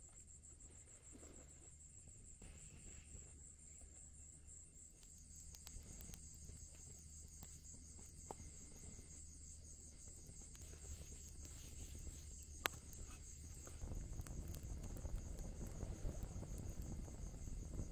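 Night insects trilling steadily in a high, pulsing chorus, with a second, lower trill joining a few seconds in. A small driftwood campfire gives a few faint, sharp crackles, and a low rush grows louder near the end.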